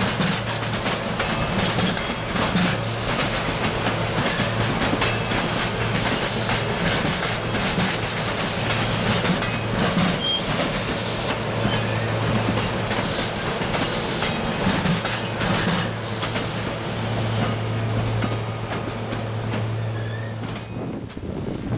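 SEPTA Silverliner V electric commuter train running past, wheels rumbling and clicking over the rails with a steady low hum, then dying away near the end as the train moves off.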